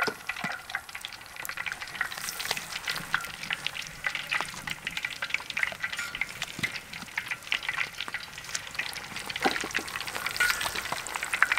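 Battered chicken feet deep-frying in a large wok of hot oil: a steady sizzle with dense crackling and popping.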